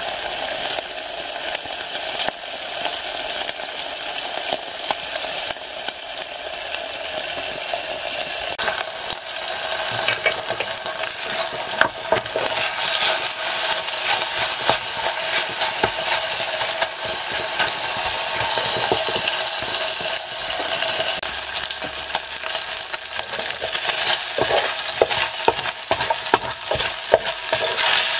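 Chopped bacon sizzling in a little oil in a Trangia pan, stirred and scraped with a wooden spoon. The sizzle gets louder about ten seconds in, with more spitting and scraping clicks from then on.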